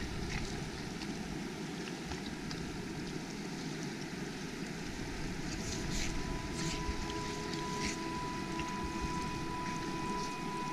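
Shallow river water rushing steadily over rocks, with a few brief splashes from a dog wading in it. Faint held music tones come in about two-thirds of the way through.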